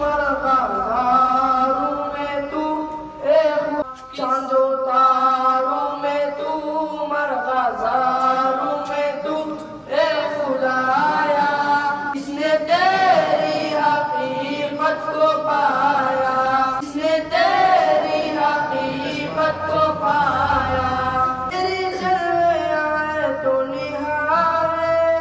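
Boys' voices singing a Pashto poem together to a chanting melody, with long held notes and short breaks between lines.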